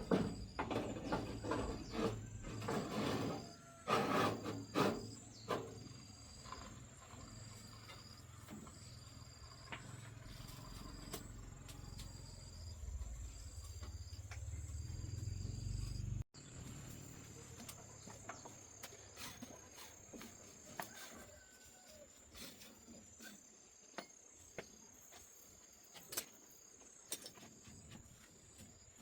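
Scattered knocks and clicks, loudest and densest in the first few seconds, over insects chirping in the background: a steady high whine and a pulsed high chirp every second or two. A low rumble builds through the first half and cuts off suddenly about halfway.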